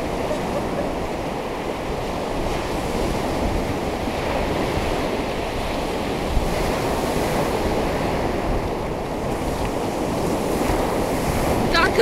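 Strong surf breaking and washing onto the beach in a steady, continuous rush, with wind buffeting the microphone.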